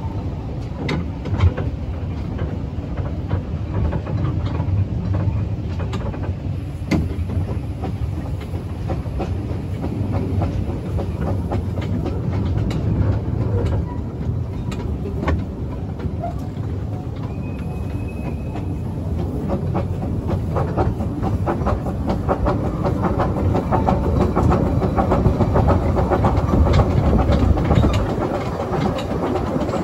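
Kerr Stuart Wren-class 0-4-0 saddle tank steam locomotive and its carriage running along narrow-gauge track: a steady rumble with frequent clicks of wheels over the rail, growing louder in the last few seconds. A brief high squeal comes a little past halfway.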